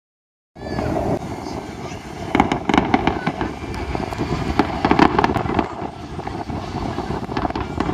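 Fireworks display: aerial shells bursting in quick clusters of sharp pops and bangs over a steady background noise.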